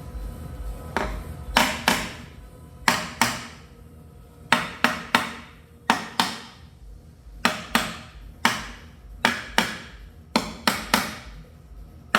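Hammer tapping the two halves of a Tesla Model 3 drive unit housing together: a dozen or more sharp strikes, mostly in quick pairs and threes with short pauses between, each with a brief ring.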